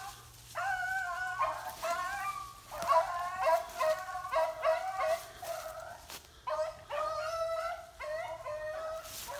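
Several hounds baying on a track: a run of drawn-out bawls, one after another and at times overlapping at different pitches.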